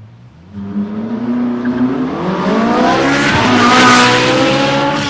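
Porsche GT2's twin-turbo flat-six with Akrapovic exhaust starting up: it fires about half a second in, then the revs climb to a peak about four seconds in and ease back.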